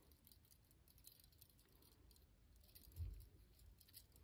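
Near silence: faint rustling and light ticks of a lace ribbon being handled by fingers, with one soft low thump about three seconds in.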